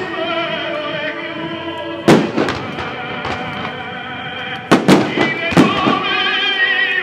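Firework shells bursting over the show's music soundtrack: one sharp bang about two seconds in, then a quick run of about five bangs near the end. The music holds sustained, wavering melodic tones throughout.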